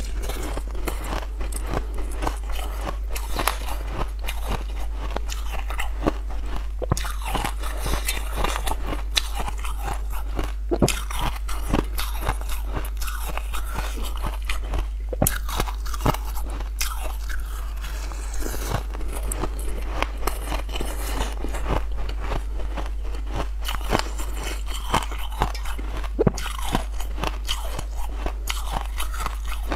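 Close-miked biting and crunching of hard purple rock-candy crystals: a steady run of sharp cracks with chewing in between, under a constant low hum.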